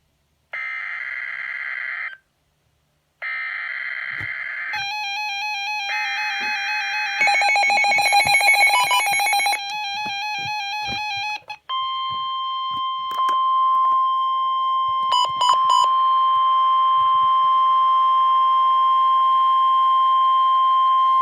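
NOAA Weather Radio Emergency Alert System (SAME) header: three short bursts of screeching digital data, with a warbling alarm tone joining in about five seconds in. From about twelve seconds in, the steady 1050 Hz weather-radio warning tone sounds for about ten seconds, marking a severe thunderstorm warning.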